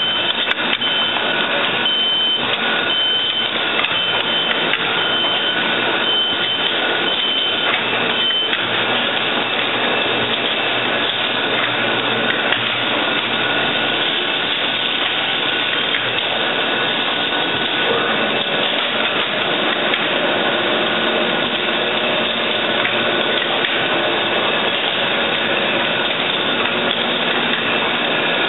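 Automatic hypodermic needle assembly machinery running steadily, a dense mechanical clatter and hum. A repeated high beep sounds about once a second and stops about a third of the way in.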